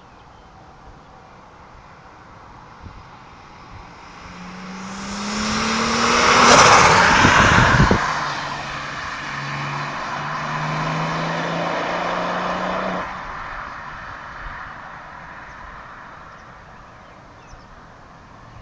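Turbocharged VW Vento with an R32 VR6 engine accelerating past, the engine note rising as it closes in and loudest as it goes by. It pulls away with the note stepping up a few times, then the engine sound cuts off suddenly and fades out.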